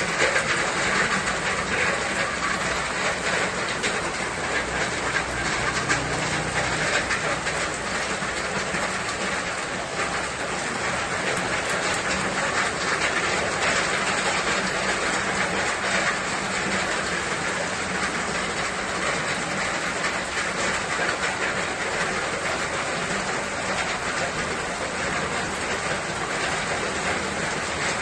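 Steady rain falling: an even hiss of many drops that does not let up.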